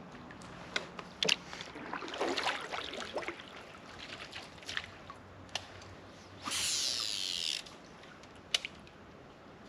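Water sloshing and small knocks against a fishing kayak, with scattered clicks. A hissing whir lasting about a second comes just past the middle and is the loudest sound.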